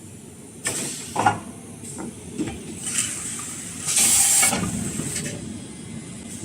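Kitchen paper towel rewinding machine running, with several sharp clanks and a loud burst of hissing air about four seconds in.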